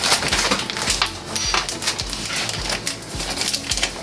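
Spatula stirring and scraping cookie dough in a stainless steel mixing bowl: an irregular run of clicks and scrapes against the metal.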